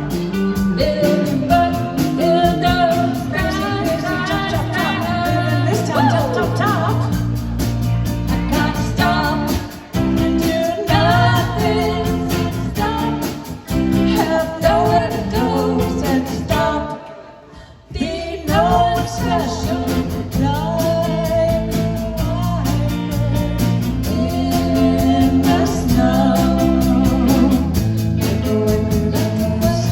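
Live band playing a song with a lead singer over guitar and bass. The sound drops out sharply for about a second just past halfway, then the band and singing come back in.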